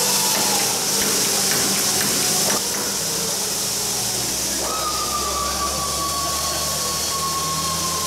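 Steady rushing hiss with a high whine that slowly falls in pitch, breaking off about two and a half seconds in and starting again a couple of seconds later. Over it come a few faint taps of a soft-faced hammer on an aluminium former flange held in a vise.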